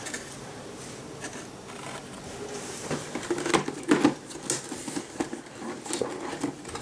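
Hands handling a motherboard on its cardboard box: irregular rustling and scraping with light knocks and clicks, sparse at first and busier from about halfway.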